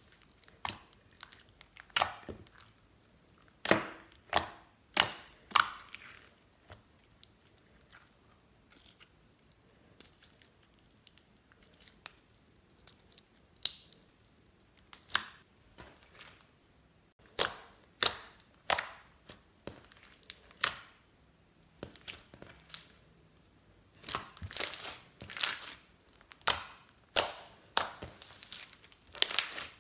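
Green glittery slime being squeezed, stretched and pressed by hand with crushed eyeshadow worked into it, giving irregular sticky pops and crackles with short quiet gaps between them. The pops come thicker near the end.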